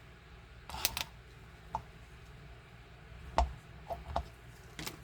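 Scattered light clicks and knocks of small metal parts being handled, about six in all, as a gear sprocket is taken out of one power window motor and fitted into the other; the loudest knock comes a little past the middle.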